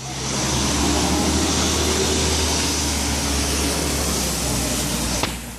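Bus driving past on a wet, slushy road: a steady low engine drone under loud tyre hiss, dropping away about five seconds in.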